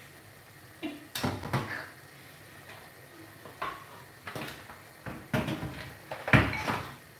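Pots and kitchen utensils being handled: a run of separate knocks and clinks, the loudest about six and a half seconds in.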